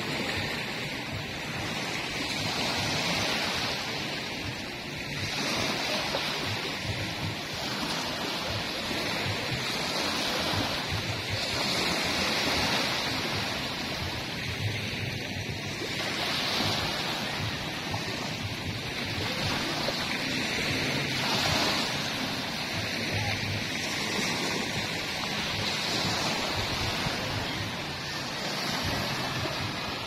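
Small waves breaking in shallow water and washing up a sandy beach: a steady rush of surf that swells and eases every two seconds or so.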